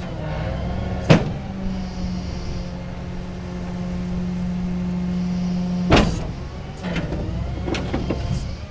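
Rollback tow truck running with a steady mechanical hum. A sharp clank comes about a second in, another about six seconds in when the steady tone stops, and several lighter knocks follow near the end.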